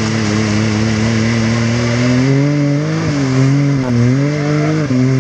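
Can-Am Maverick X3 side-by-side's engine running hard under load, its revs rising and falling, with short dips about three seconds in and again near the end.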